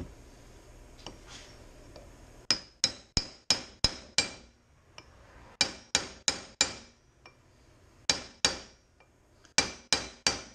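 Hammer blows on a steel pin used as a drift, driving new wheel studs down into a zero-turn mower's wheel hub: sharp metal-on-metal strikes that ring, about three a second, in four bursts of two to six blows with short pauses between.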